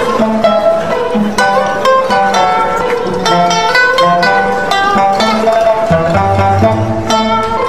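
Background music: a plucked-string tune of short notes over a bass line.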